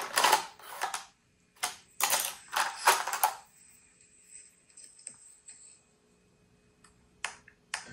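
Handling noises from an eyeshadow palette and makeup brush: a run of clicks and scratchy brushing in the first few seconds, then two sharp clicks near the end.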